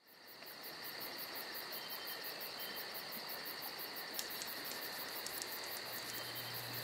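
Faint steady background hiss with a high, steady whine and a quick, even trilling pulse on top. About six seconds in, a low steady hum starts.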